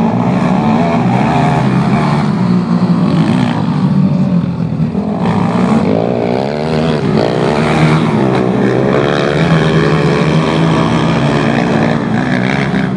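Engines of dirt-track racing bikes running at race speed, several at once, their pitch wavering up and down as they lap the oval, most prominent about six to ten seconds in.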